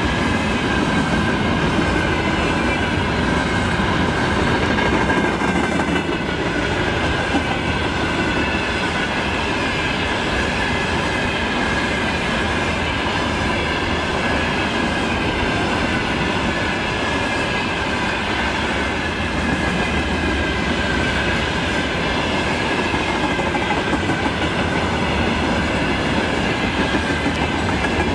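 Freight train of covered hopper wagons rolling past close by: a steady rumble and wheel clatter on the rails, with a faint wavering squeal above it.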